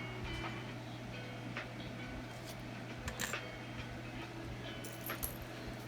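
Scattered small clicks and light metallic clinks of costume jewelry being handled and set down, some leaving a brief high ring, over a steady low hum.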